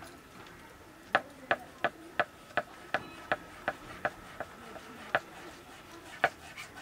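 Kitchen knife chopping buffalo intestine on a wooden cutting board. About ten sharp, even chops come at just under three a second from about a second in, followed by a few slower chops near the end.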